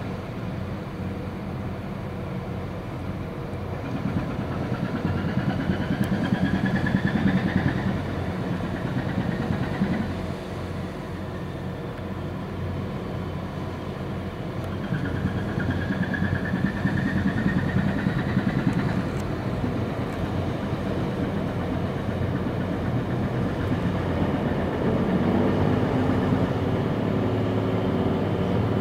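Steady low engine hum. A slow rising whine climbs twice, each time over about four seconds. Near the end a deeper engine note rises and grows louder.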